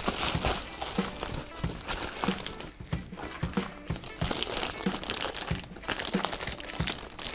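Bubble wrap and a thin clear plastic bag crinkling and rustling in the hands as a new item is unwrapped, a dense run of small irregular crackles and clicks.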